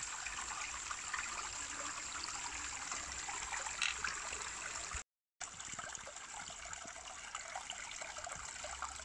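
Shallow mountain stream trickling and splashing over rocks, a steady even rush of water; the sound cuts out for a moment about five seconds in.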